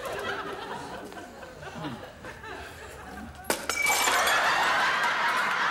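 A glass wine bottle smashes with a sudden crash about three and a half seconds in, followed straight away by loud studio-audience laughter and applause.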